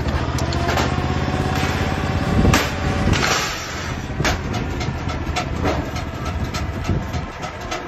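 Portable roll-forming machine running as it forms a steel roof panel, with a steady low hum and quick clicking and clattering of metal. About two and a half seconds in comes a louder scraping burst, after which the hum drops away and the clatter goes on.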